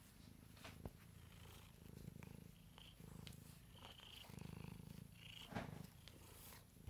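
Domestic cat purring while being brushed, the purr swelling and fading with each breath about once a second. Short scratches of a metal-pin brush through the fur sit over it, with a couple of sharp clicks, the loudest about two thirds of the way in.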